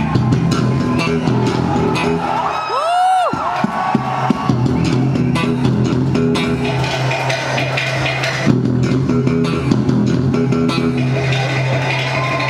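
Electric bass guitar played live through stage amplification, with low notes held and repeated. About two and a half seconds in, a sliding note swoops up and back down.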